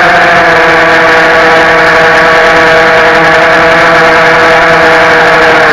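FPV racing quadcopter's brushless motors (DYS Samguk 2300KV) and propellers whining steadily in flight, loud and close to the onboard camera's microphone. The pitch holds nearly level with slight wavering.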